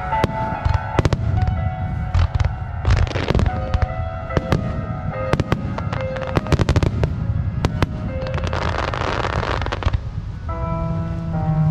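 Aerial firework shells bursting in quick succession, many sharp bangs, with a dense crackling hiss about eight and a half seconds in. Music plays throughout.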